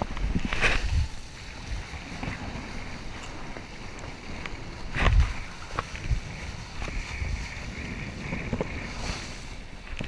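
Wind buffeting a chest-mounted action camera's microphone while a Tona kiteboard skims the sea, with water rushing and spray splashing under the board. Louder gusts of rush come about half a second in and again around five seconds.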